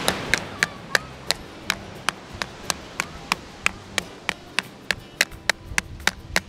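Plastic toy shovel tapping on the bottom of an upturned plastic sand castle bucket, a steady run of sharp taps about three a second, loosening the packed sand from the mold.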